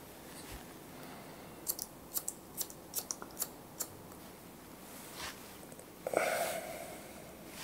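Barber's scissors snipping short hair over a comb: a quick run of about nine crisp snips in two seconds. About six seconds in comes a louder short sound with a clear pitch that dies away within half a second.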